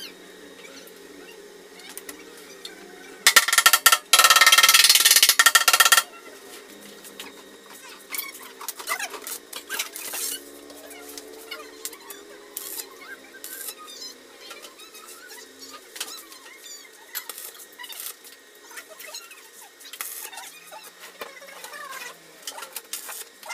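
Stick (arc) welding on a steel tank: the electrode's arc crackles and hisses loudly for about three seconds, with a brief break partway, laying a short tack or stitch weld. Afterwards only small scattered clicks and taps of metal on metal.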